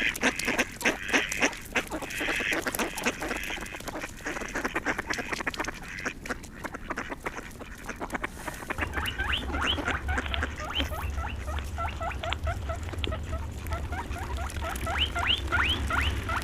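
Farm birds calling: a dense run of rapid calls, then from about nine seconds in a string of short, high, rising peeps, over a steady low rumble.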